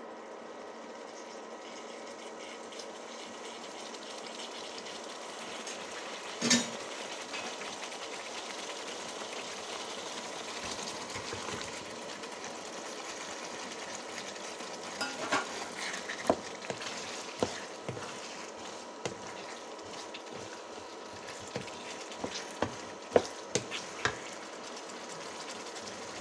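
Thick red chili sauce sizzling steadily in a frying pan. A wooden spatula knocks the pan once loudly about six seconds in, then clicks and scrapes against it several times in the second half as chicken pieces are stirred into the sauce.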